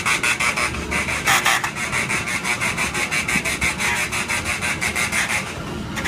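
Kiddie ride turning, with a rapid, even, rasping rattle that breaks off briefly near the end.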